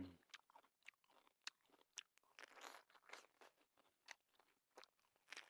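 Faint chewing of a kumquat: scattered soft crunches and small mouth clicks at irregular intervals.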